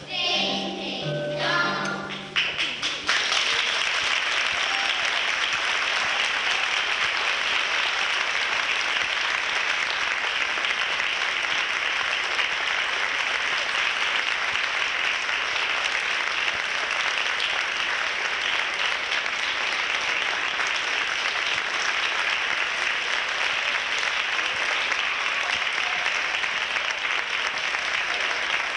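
A chorus of young children sings the final notes of a song, ending about two and a half seconds in, then an audience claps in steady applause.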